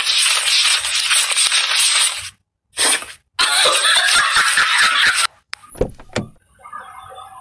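Paper banknotes being handled and counted, a loud crisp rustling and crackling in two long stretches with a brief burst between. Two low thumps follow near the end.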